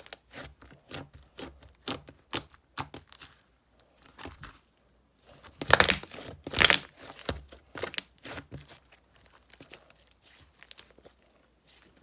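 Slime being squeezed and stretched by hand, giving irregular crackling and popping clicks; two louder bursts come about six seconds in, and the clicks thin out toward the end.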